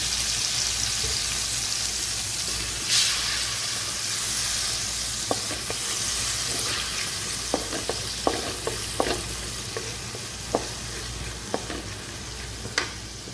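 Sauce sizzling in hot oil in a metal kadhai, a steady hiss that flares louder briefly about three seconds in. From about five seconds on, a wooden spatula stirring the sauce knocks and scrapes against the pan in a scattered run of sharp clicks.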